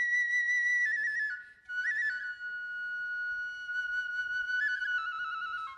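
Japanese bamboo transverse flute of kagura music playing long high held notes decorated with quick fluttering grace notes. A short break about a second and a half in is followed by a lower note, held with small stepping ornaments.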